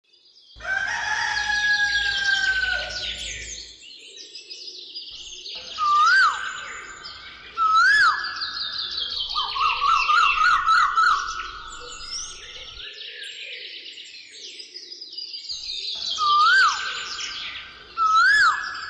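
Birdsong: several birds chirping and trilling, with a short upswept whistle repeated a few times and a rapid trill near the middle.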